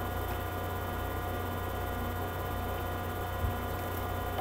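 Steady electrical mains hum with a faint hiss under it, and one light tap about three and a half seconds in.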